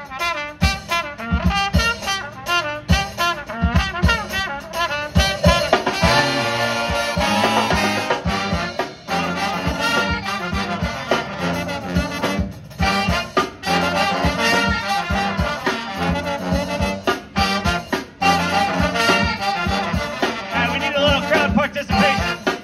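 Live brass band playing: trumpets, trombones and saxophones over sousaphone and drum kit, with steady drum beats throughout. About six seconds in, the horns hold a long chord.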